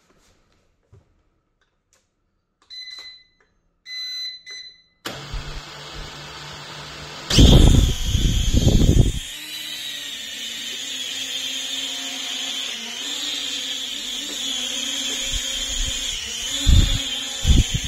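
Small toy quadcopter drone starting up and taking off: two short pairs of electronic beeps, then its motors spin up about five seconds in, a loud low rush of propeller wash as it lifts off about seven seconds in, then a steady high-pitched propeller whine as it flies, with two low thumps near the end.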